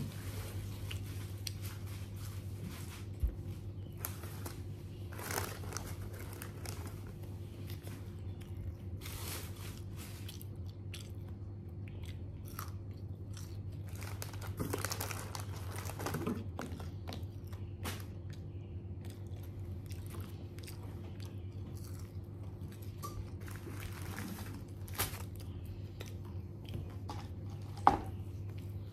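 Chewing and crunching on fried chicken, with short crisp crunches now and then over a steady low hum. A sharp tap about three seconds in and a louder one near the end.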